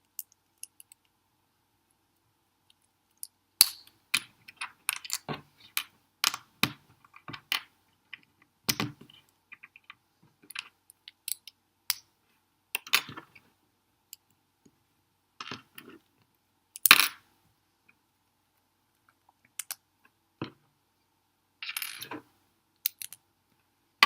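Small plastic building-brick pieces clicking, snapping together and clattering as they are picked up and fitted, in irregular sharp clicks with one louder snap a little past halfway and a brief rattling shuffle of loose pieces near the end.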